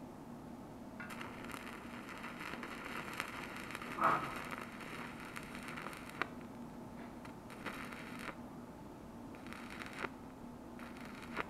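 Stick welding arc with a 2 mm electrode on a stainless steel catalytic converter shell, crackling and sizzling. The arc runs for about five seconds from a second in, with one louder pop in the middle, then strikes again in three shorter bursts. A steady low hum sits underneath.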